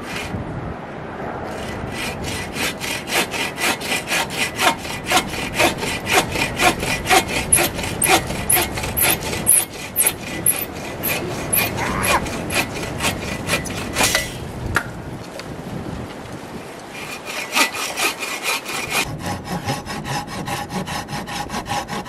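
Hand saw cutting through wood in quick, even back-and-forth strokes. The sawing stops briefly about two-thirds of the way through, with a sharp knock, then starts again.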